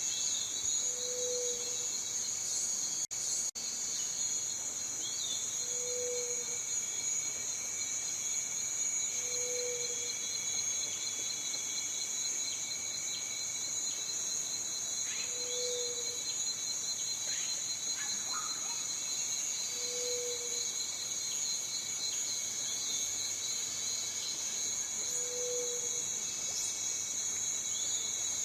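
Cicadas singing in a continuous high-pitched buzzing chorus. A short low hoot comes about every four to five seconds, with a few faint chirps, and the sound cuts out for an instant twice about three seconds in.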